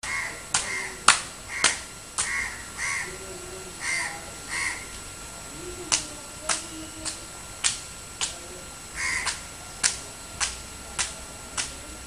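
Crows cawing again and again, mostly in the first five seconds and once more about nine seconds in. Steady sharp clicks, a little under two a second, run underneath.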